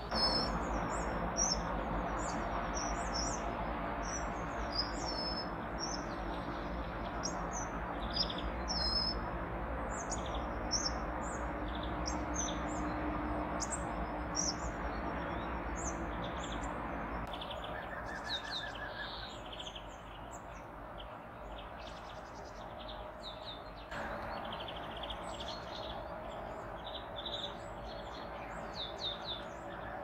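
A mix of small songbirds chirping and calling, with many short high calls overlapping, over a steady background rush.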